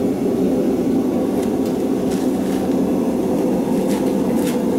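Forge running with a steady, low rushing noise, and a few light clicks and knocks over it.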